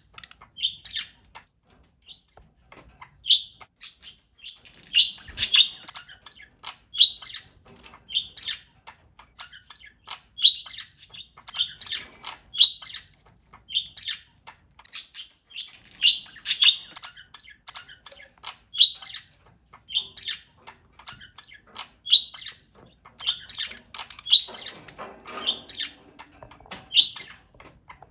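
Pet parakeet chirping: short, high, sharp chirps at irregular intervals, about one a second, some in quick pairs, with a busier stretch of chatter near the end.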